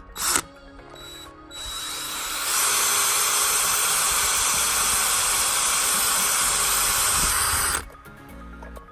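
18-volt cordless drill running under load as its bit drills into a smartphone, a steady, loud whir that builds up about a second and a half in and cuts off near the end.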